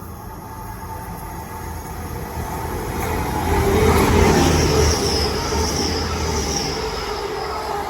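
Grand Central class 180 diesel multiple unit passing through the station at speed. Its diesel rumble and wheel noise build to a peak about halfway through. A high-pitched squeal from the wheels joins for the last few seconds.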